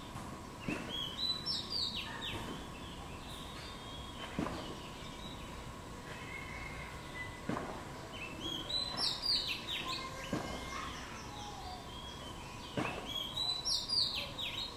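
Small songbirds chirping in three quick bursts of high, falling notes: about a second in, around eight seconds in, and again near the end.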